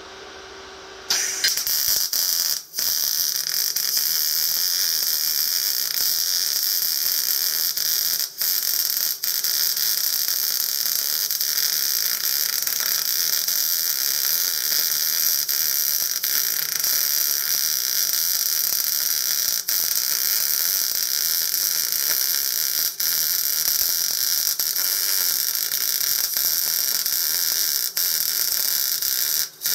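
MIG (gas metal arc) welder arc running a bead along the seam between wheel rims to fill a gap: a steady hiss that strikes up about a second in, with a few brief breaks where the arc stops and restarts.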